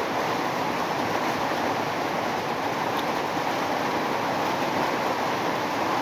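Steady, even rushing noise with no pitch, and one faint click about three seconds in.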